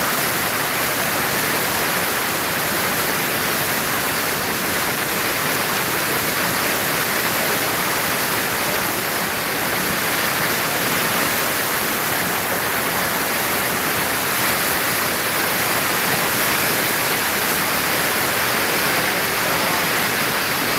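Fast mountain river rushing over boulders in white-water rapids: a loud, steady rush of water with no let-up.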